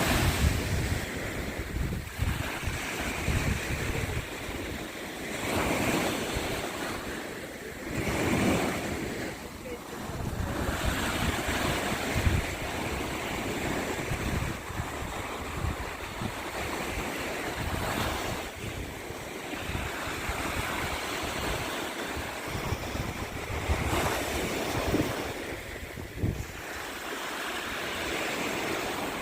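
Black Sea waves washing onto the shore, swelling and ebbing every few seconds, with wind buffeting the microphone in low rumbling gusts.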